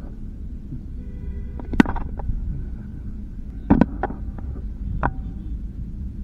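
Wind rumbling on an action camera's microphone behind the stumps, with a few sharp knocks. The loudest, about two seconds in, is the cricket ball's impact as the delivery arrives.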